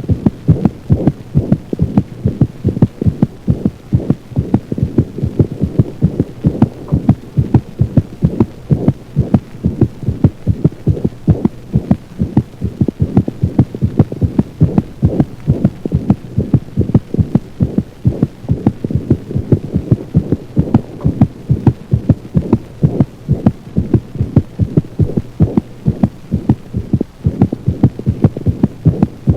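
Dog's heart sounds heard through a stethoscope: a rapid, even run of low beats over a steady low hum.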